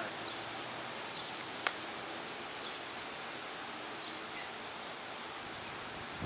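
Outdoor ambience: a steady, even hiss with a few faint, short high chirps now and then, and one sharp click about a second and a half in.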